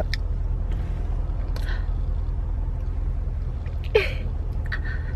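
Steady low hum inside a minivan's cabin, with a few faint mouth and breath sounds from people eating, and one short vocal sound about four seconds in.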